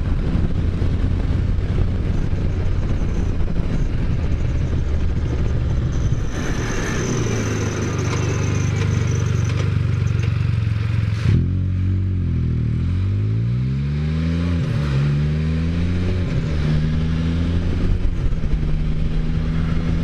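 Can-Am Spyder's engine running on the move, its pitch falling and climbing again several times through gear changes and acceleration in the second half, with wind noise over it. A thin high tone sounds from about six seconds in and stops sharply about five seconds later.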